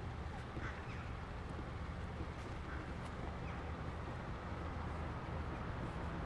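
City street ambience: a steady low rumble of traffic, with a few faint short chirps and light clicks over it.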